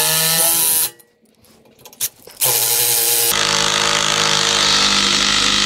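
Power driver driving a HeadLok structural wood screw into a timber post. It runs, stops just under a second in, then starts again after a short pause with one click and runs steadily for about three seconds, changing pitch partway.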